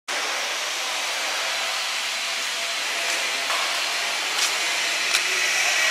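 Four-head CO2 laser cutting machine running while it cuts, a steady blowing hiss with a few faint ticks in the second half.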